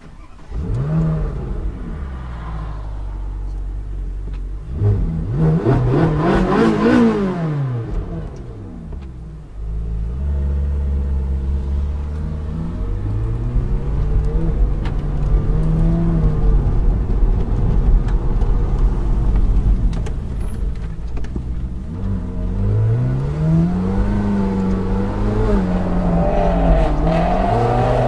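Ferrari 458 Speciale's V8 with a Fi aftermarket exhaust, heard from inside the cabin while driving. The revs climb and fall several times, with a sharp rise and drop about six seconds in and more climbs toward the end.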